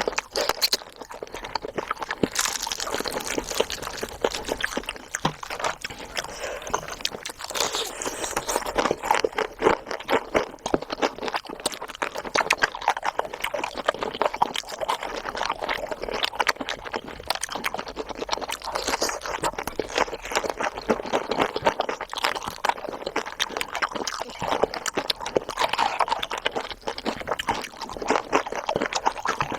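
Close-miked chewing and mouth sounds of someone eating cheese and chicken: a dense, continuous run of small wet clicks and smacks.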